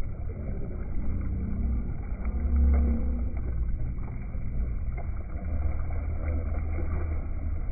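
Boat under way on a river: a steady low rumble with water churning past the hull, swelling briefly a few seconds in.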